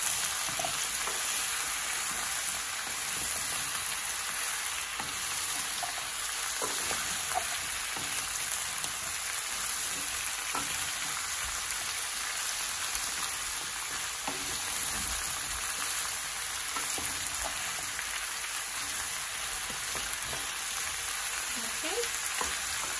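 Chopped vegetables sizzling in hot oil in a non-stick pan, a steady sizzle, while a wooden spoon stirs them, adding faint scattered scrapes and ticks.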